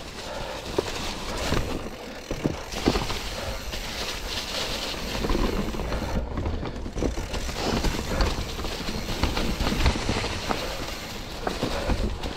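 Mountain bike clattering over rocks and roots, with tyres, chain and frame knocking irregularly over a steady low rumble.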